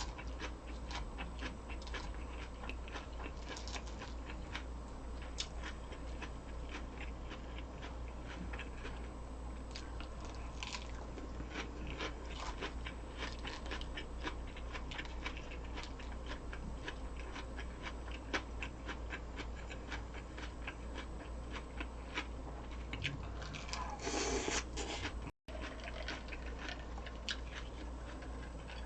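A person eating close to the microphone: crunchy chewing and biting with many small wet clicks, over a steady low hum. A louder, rougher burst of crunching comes near the end, followed by a split-second dropout.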